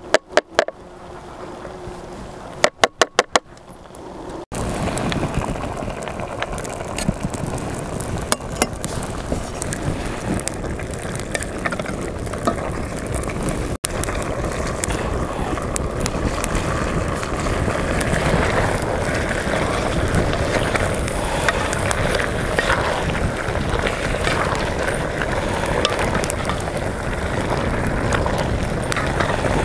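A metal box grater worked in two quick runs of rasping strokes, then a steady sizzle of chicken frying in oil in a karahi over a wood fire, with scattered clicks and scrapes as a wooden spoon stirs it.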